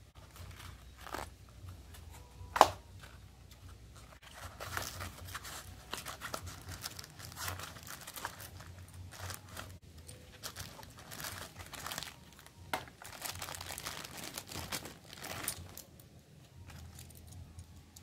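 Cardboard box and plastic packaging rustling and crinkling as a drawer lock, its keys and screws are unpacked by hand, with one sharp click a little over two seconds in.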